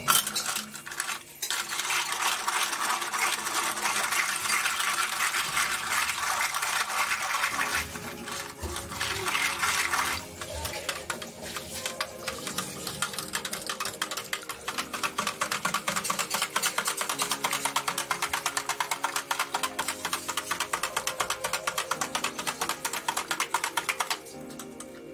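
Lassi being mixed: curd, water and sugar stirred or whisked fast and continuously in a vessel, a rapid, even rhythm of strokes that pauses briefly about eight and ten seconds in and eases off near the end.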